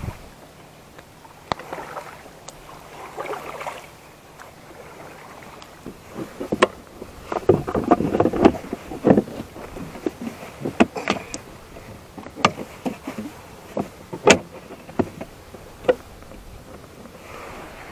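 Hard plastic knocks and clatter as a kayak's pedal-drive propeller unit is handled and seated in its well in the hull, with scattered clicks as it is strapped down. The knocks are irregular and come thickest about seven to nine seconds in.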